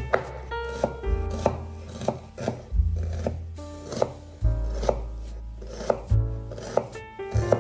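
Background music with a low bass line changing about every second and a half and plucked melodic notes. Over it, a kitchen knife chops vegetables on a cutting board in scattered sharp knocks.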